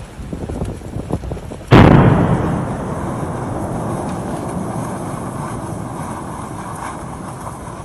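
A volcanic fissure eruption bursts open with a sudden loud blast about two seconds in. A sustained noisy rush follows and slowly eases as the eruption gets going.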